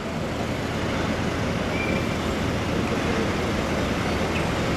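Truck engine running steadily with a low rumble, typical of a truck-mounted crane's engine powering its hydraulics while it hoists a heavy load, with street noise around it.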